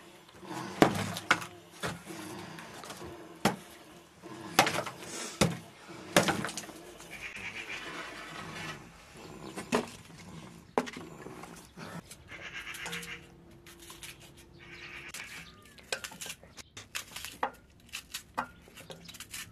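Hatchet blade chopping chunks of dried dung cake and wood: a series of sharp chops in the first six seconds, then scattered lighter knocks and clatter.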